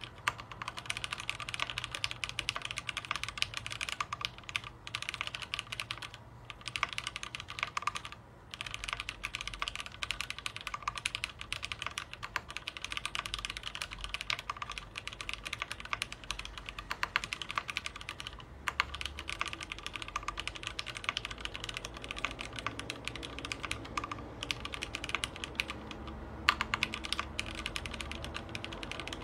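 Fast, continuous typing on a keyboard, with a few brief pauses.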